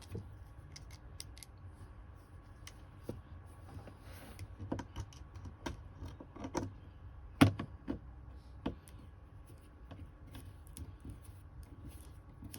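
Scattered small clicks and knocks of the car clock and its retaining clip and fixings being handled and fitted back into the dashboard by hand, with one sharper knock about seven and a half seconds in.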